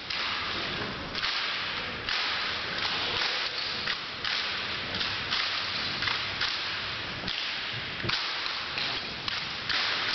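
Drill rifles being spun, slapped and caught by a team of cadets: irregular sharp slaps, one or two a second, each ringing on in the echoing gymnasium.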